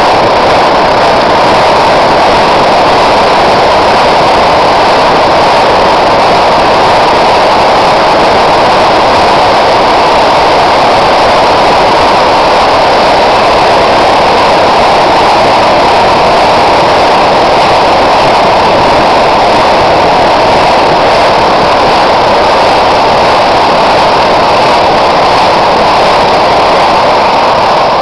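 Petrol blow lamp with a copper vaporiser coil burning, a loud, steady rushing noise with no let-up.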